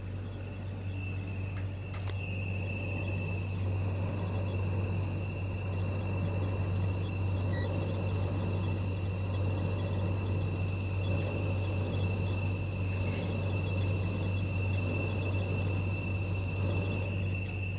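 Samsung dishwasher running its wash cycle: a steady low hum with a thin, high-pitched whine held over it and a few faint clicks. It is one of the horrible noises this machine makes during the wash cycle.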